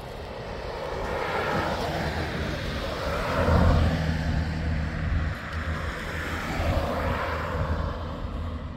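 An engine running with a steady low hum that gets louder about three and a half seconds in, under a rushing noise that swells and fades.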